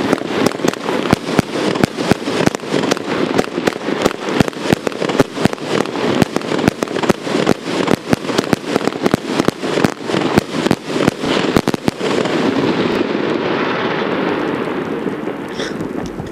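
A Blazing Diamonds 100-shot (4x25) 1.2-inch firework cake firing, shots coming about four a second. About twelve seconds in the shots stop and a steady wash of sound slowly fades as the cake finishes.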